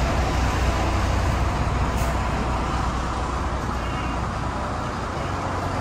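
Steady rumble of motor vehicles and road noise.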